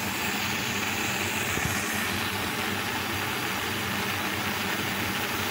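Gas stove burner burning on a high flame under a clay pot, giving a steady hiss with no changes.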